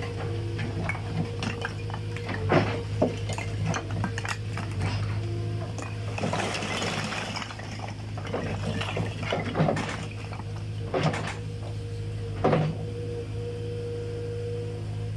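Skid-steer loader engine running steadily while stones tip out of its steel bucket, knocking and clattering onto a rock pile, with a rush of sliding stone about six seconds in and a few loud single knocks later on.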